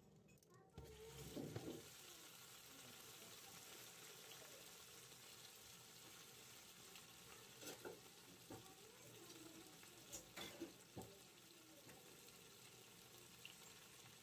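A cooked leg of mutton set down in a hot, oiled grill pan, knocking against the pan about a second in, then frying with a faint, steady sizzle. A few more short knocks come about eight and ten seconds in as the meat is handled.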